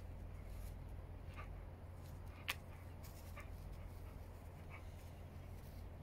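A borzoi and another dog playing tug-of-war with a plush monkey toy, with a few short, faint high-pitched sounds. There is one sharp click about two and a half seconds in.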